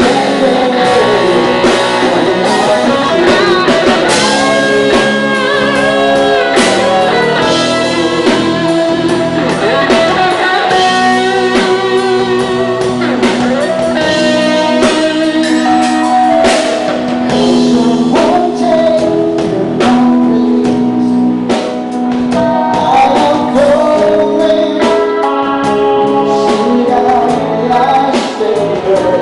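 Rock band playing live: a singer over guitars and a drum kit, loud and unbroken.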